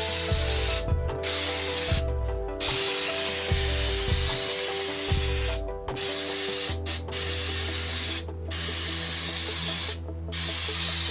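Air-powered spray gun spraying Raptor bed liner, a loud steady hiss broken by about six short pauses. Background music plays underneath.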